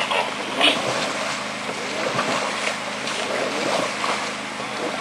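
Steady rush of flowing stream water, with a few short splashes, the clearest about two-thirds of a second in.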